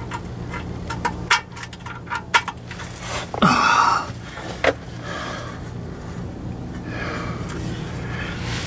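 A steel automatic-transmission pan being handled and lifted up against the transmission case. There are a series of light clicks and knocks, then a short, louder metal scrape a little over three seconds in, all over a steady low hum.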